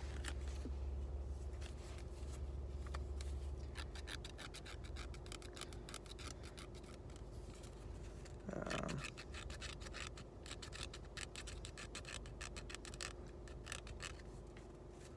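Scratch-off lottery tickets being scratched: a long run of quick, rasping strokes scraping off the coating, with short pauses between bursts.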